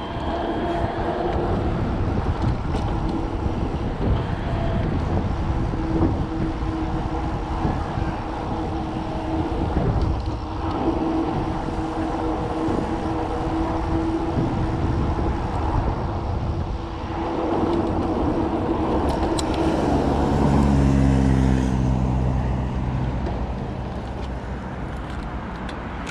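Steady rushing, rumbling vehicle noise with a constant hum. About twenty seconds in, a passing vehicle's engine gets louder and drops in pitch.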